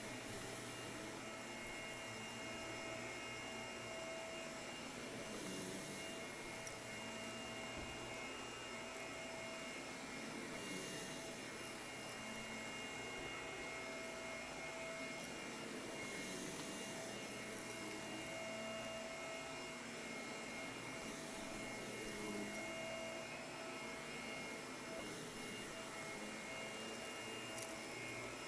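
White Shark vacuum cleaner running steadily over carpet: a constant motor rush with a few thin steady whine tones on top.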